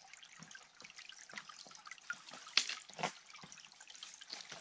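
Faint trickling water: a small stream running, with irregular little drips and plinks and two louder splashes about halfway through.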